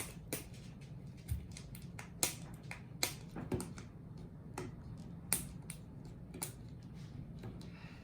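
Plastic packaging handled with the fingers while someone tries to open it, giving a string of sharp, irregular clicks and crinkles.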